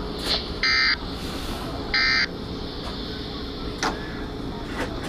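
Two short bursts of digital data tones from an emergency weather alert broadcast header, about a second and a half apart, over steady background noise. Two faint clicks come near the end.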